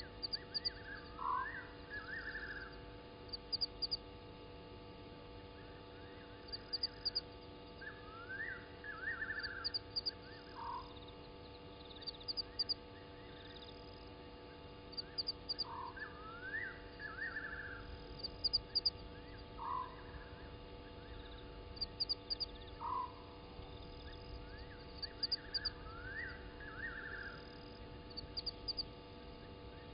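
A night chorus of frogs calling at a waterhole: short rising notes every few seconds, some running into a brief buzzy trill, with quick clusters of high clicks in between. A faint steady hum lies underneath.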